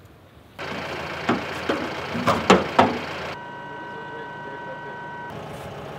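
Electro-hydraulic tail lift on a livestock rescue truck in operation. Its motor starts suddenly about half a second in, with several metal clunks from the platform, then settles into a steady whine.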